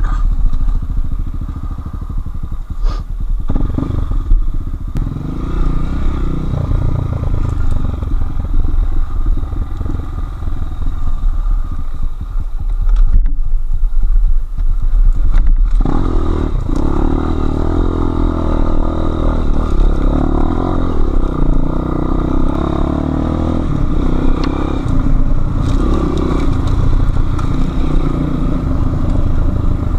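Enduro motorcycle engine running under load, its revs rising and falling over and over as it is ridden off-road.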